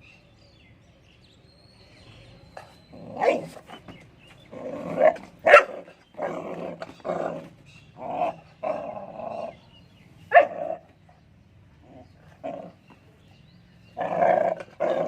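A Bully Kutta (Indian Mastiff) puppy barking and growling in a string of irregular short bursts, with a quieter stretch before a last burst near the end.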